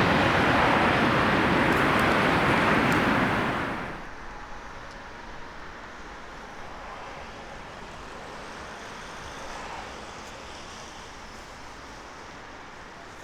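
Airbus A320-200 jet on landing approach passing close by: a loud rushing engine roar for about four seconds that drops off abruptly to a much quieter steady hiss.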